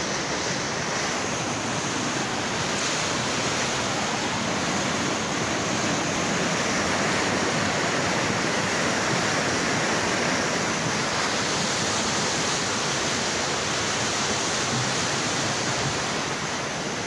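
Floodwater rushing fast and churning through a walled river channel: a steady, unbroken rushing noise.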